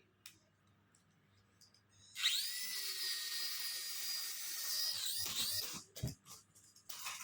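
Small electric propeller motor of a sensor-controlled flying helicopter ball toy, a high-pitched whine that spins up about two seconds in, runs steadily for about three and a half seconds, then winds down with falling pitch. A few knocks follow, then a short burst of the motor near the end.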